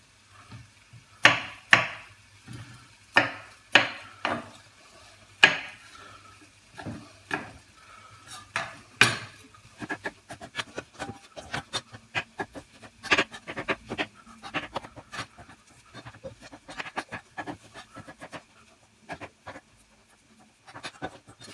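Knife cutting bell peppers into squares on a wooden chopping board: sharp knocks of the blade on the wood, a few loud, spaced-out strokes at first, then quicker, lighter chopping from about ten seconds in.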